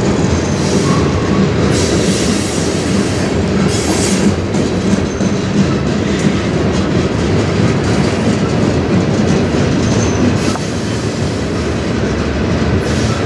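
Freight train rolling past close by: a steady, loud rumble with the wheels clacking over the rail joints.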